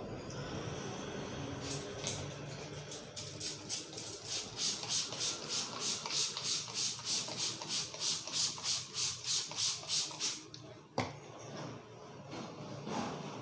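Hands rubbing briskly back and forth over hair and skin during a head massage, an even run of rasping strokes about three a second that stops after roughly eight seconds. A single sharp click follows.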